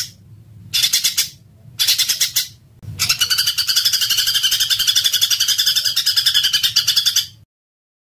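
Small songbird giving rapid, dense, harsh rattling trills. Two short bursts come first, then about three seconds in a single long trill that runs for over four seconds and cuts off abruptly.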